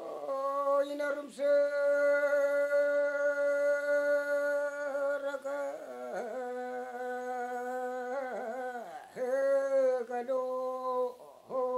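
A solo man's voice sings a Yami (Tao) fishing song, unaccompanied, in one melodic line and in free-rhythm recitative style. He holds a long steady note for several seconds, then wavers through dipping turns of pitch, and settles on another held note before the phrase ends.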